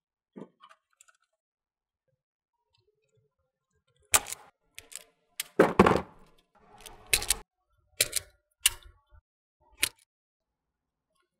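Sharp clicks and knocks of hand tools and wire against circuit breakers and a metal panel as wires are landed on breaker terminals. After a few quiet seconds there are about nine separate clicks, irregularly spaced, the loudest about halfway through.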